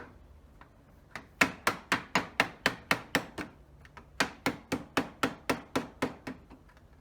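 Hammer blows on a sheet of tin roofing, folding its edge tight under a wooden beehive lid: two quick runs of strikes, about four a second, with a short pause between them.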